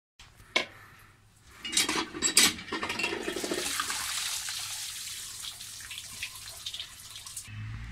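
Water pouring from a spout onto Maggi noodles in a plastic colander and splashing through onto a concrete floor, a steady rush. A few sharp knocks come in the first seconds, and the pour stops shortly before the end.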